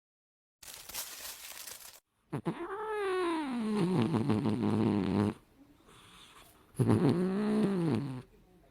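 A cat yowling in two long drawn-out calls, each rising and then falling in pitch. The first call lasts about three seconds, and a shorter one follows near the end.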